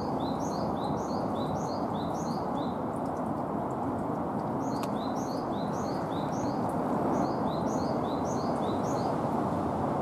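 Japanese tit (great tit) singing: two bouts of quickly repeated high whistled phrases, each stepping down in pitch, the tsu-pii song. The first bout runs about two and a half seconds, and the second starts about five seconds in and stops just before the end. A steady low background hum lies under the song.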